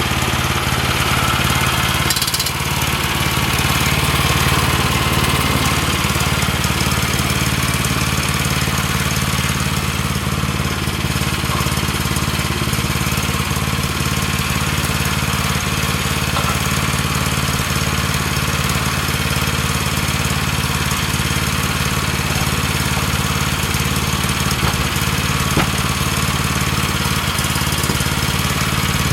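Small gasoline engine of a Woodland Mills portable bandsaw mill running steadily at an even speed.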